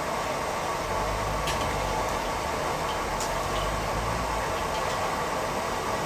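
Steady rushing roar of gas wok burners on a commercial kitchen stove, with a few light clicks of metal spatulas against the woks during stir-frying. A low rumble runs for a few seconds in the middle.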